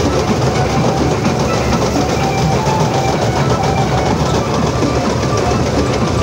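Jasbir combine harvester running under load while cutting rice, heard from the operator's seat: a loud, steady mechanical din of engine, header and threshing gear with a fast, even rattle through it.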